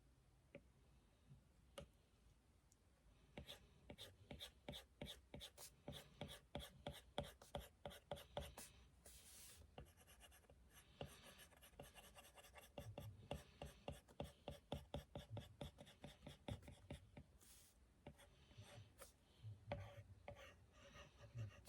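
Faint, quick drawing strokes: a drawing tool scratching and tapping on the drawing surface in rapid runs, starting about three seconds in.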